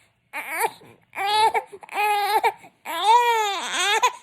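Two-month-old baby boy making four cry-like vocal sounds that come across as a reply to a question. Each is longer than the one before, and the last is the longest, its pitch rising and then falling.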